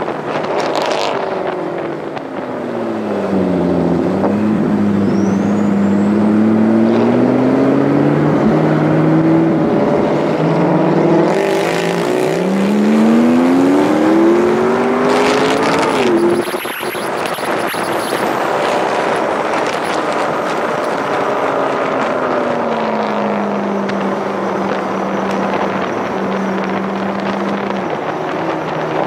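McLaren MP4-12C's twin-turbo V8 accelerating: the engine note climbs through two gears with a shift between, cuts off sharply when the throttle is lifted about halfway through, then settles to a steady cruise and eases off near the end. A few bursts of rushing wind noise sound over it.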